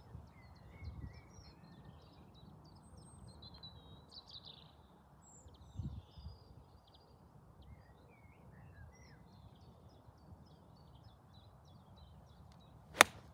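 Birds chirping over faint outdoor background, then near the end a single sharp crack as a 46-degree pitching wedge strikes a golf ball, the loudest sound by far.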